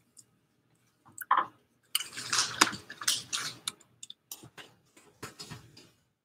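Rustling, scraping and clicking close to the microphone, thickest about two to four seconds in and thinning to scattered clicks: handling noise as the painter leans over the recording device.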